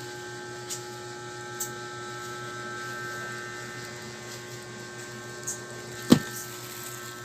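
Steady electrical hum with a few steady tones, broken by a single sharp click about six seconds in.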